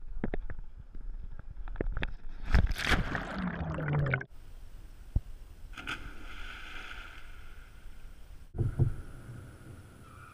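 Water splashing and sloshing close to a kayak-mounted camera, with small scattered knocks and a louder churning splash a few seconds in. The sound cuts off abruptly twice.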